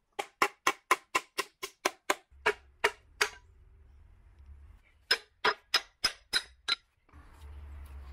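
Hammer blows on a steel drift against a rusty Corvette rear trailing-arm wheel bearing housing, knocking it apart: a quick run of about a dozen sharp metallic strikes, then a pause and about seven more with a clear ringing tone. A low rumbling noise starts near the end.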